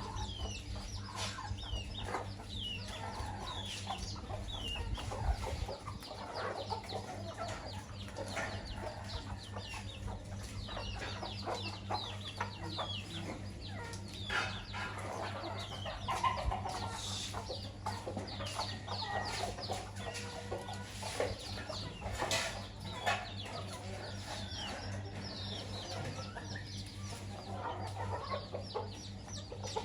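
A flock of chickens clucking continuously, with many short, high, falling calls mixed in, over a steady low hum.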